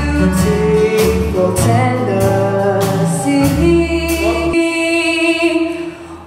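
Acoustic bluegrass band playing a waltz: acoustic guitars strummed in waltz time, upright bass and mandolin, with a woman singing. About four and a half seconds in, the bass and strumming stop and a held chord rings out and fades.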